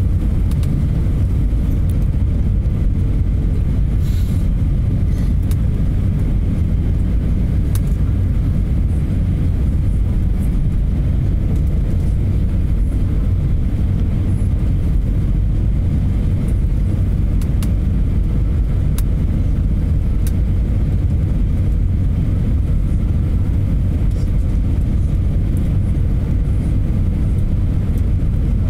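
Steady low cabin rumble inside an Airbus A320 on approach, from the engines and the airflow over the wing with its flaps extended. A faint steady hum and a few light clicks sit on top.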